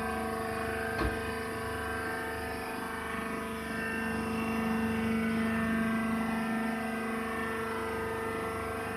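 Baling machine running with a steady mechanical hum, a little louder in the middle, with one short knock about a second in.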